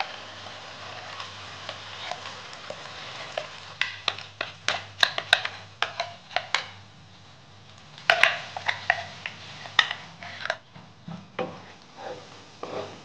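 Ground spice paste sizzling in hot oil in a wok, with a steady hiss and many sharp pops and clicks as more paste goes in. Near the end, a wooden spatula stirs and scrapes the paste around the pan.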